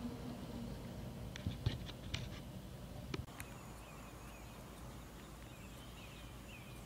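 Freight train cars rolling past with a low rumble and a few sharp clanks of wheels and couplings. In the second half a small bird chirps over and over.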